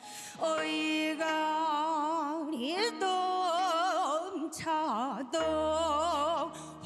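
A woman singing a slow fusion gugak (Korean traditional-style) melody with wide, wavering vibrato over sustained keyboard chords. A low bass note comes in about five and a half seconds in.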